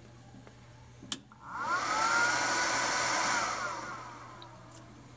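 A DC breaker snaps on about a second in, then the cooling fan of an Outback FlexMax 80 solar charge controller whirs up in rising pitch, runs for about two seconds and winds down as the controller powers up.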